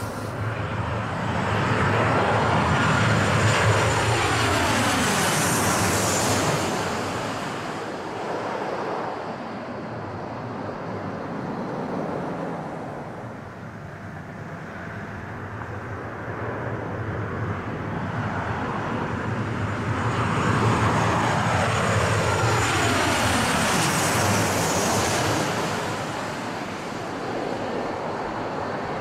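A Boeing 737 on short final passes low overhead: the jet engine noise swells to a loud rush with a whine that falls in pitch as it goes by. About twenty seconds in, a second landing jet airliner passes over the same way.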